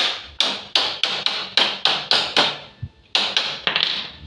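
Hammer striking the metal tubing of a clothes-drying rack being repaired: quick sharp blows, about three a second, with a short break about two and a half seconds in before a few more.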